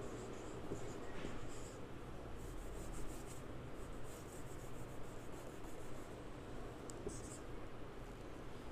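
Marker pen writing on a whiteboard: faint strokes in short runs with brief pauses between them.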